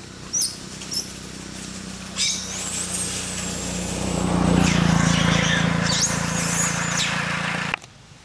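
A steady low engine hum that swells through the middle, with two short high squeaks in the first second and shrill squealing from about two seconds in; everything cuts off suddenly near the end.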